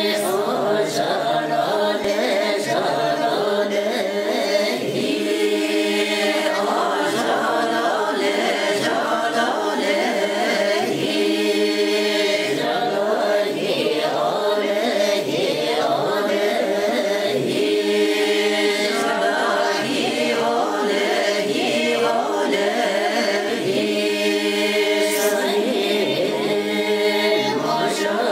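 A group of voices singing together in a chant-like choral song, the notes held and then changing in a steady rhythm.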